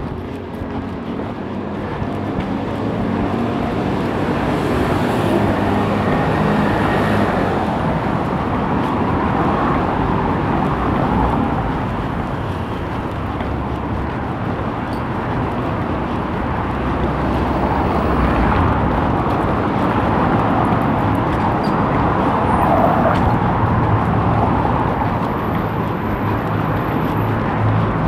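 City street traffic: motor vehicles running past with a steady hum of engines and tyre noise, swelling over the first few seconds.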